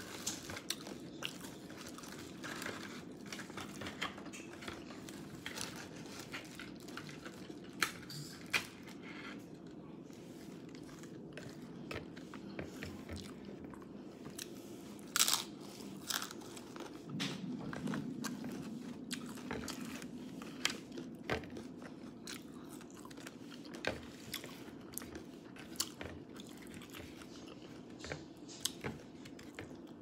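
A person eating tacos, chewing with irregular crisp crunches and bites. One sharper, louder crunch comes about halfway through.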